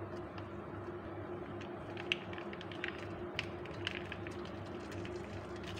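Faint scattered crackles as mee goreng seasoning paste is squeezed from its sachet into a pan with a little hot oil, over a steady low hum.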